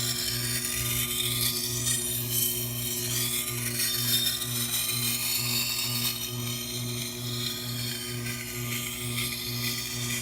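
Steel edge of a leatherworking head knife being ground on a powered wet sharpening stone, a steady scraping hiss over the machine's low hum, which pulses about twice a second. The grinding is raising a burr along the blade's second side.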